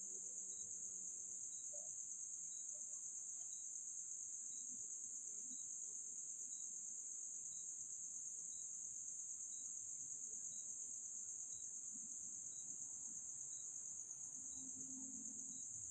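Insects trilling steadily at a high pitch, with a faint tick about once a second.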